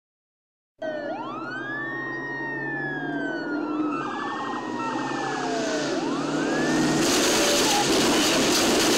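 Police car sirens wailing, several overlapping, each rising and falling in pitch, with traffic noise that grows louder toward the end. The sound starts suddenly about a second in.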